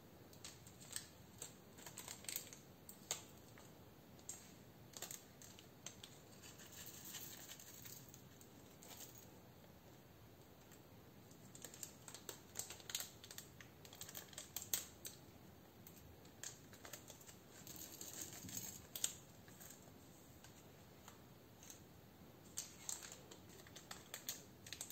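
Scattered light clicks and taps of plastic pearl beads and sequins being picked up and dropped onto slime in a ceramic dish, with a few brief rustles of small plastic bags.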